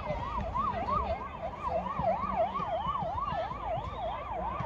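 A siren going quickly up and down in pitch, about three rises and falls a second, over low background rumble.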